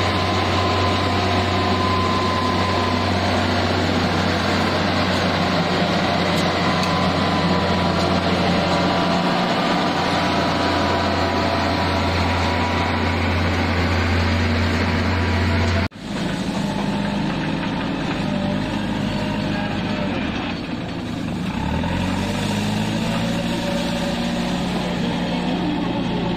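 Heavy diesel engine of road construction machinery running steadily. About two thirds of the way in, the sound cuts sharply to another engine running, its speed rising and falling a little later.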